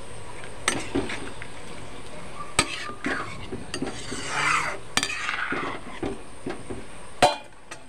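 Steel ladle stirring thick dal pakora curry in a metal kadai, scraping through the gravy and knocking against the pan several times, with the sharpest clink near the end.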